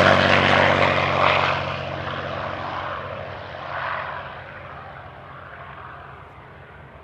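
P-51D Mustang's Packard Merlin V-12 engine and propeller droning as the fighter flies away after a low pass, fading steadily into the distance with a brief swell about four seconds in.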